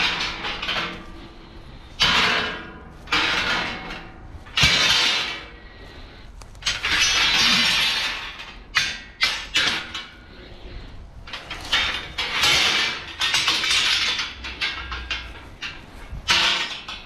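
Harsh noise: irregular bursts of crackling, shattering noise that start abruptly, a second or two long, with quieter stretches between them.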